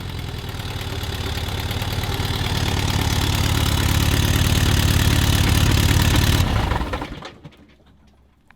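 A vehicle engine running, growing steadily louder for several seconds, with a high hiss over it, then stopping sharply about seven seconds in.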